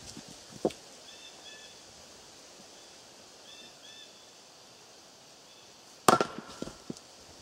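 An axe strikes and splits a firewood round with one sharp, loud crack about six seconds in, followed by a few smaller knocks. Before it, a lighter knock as the round is set down on the chopping block.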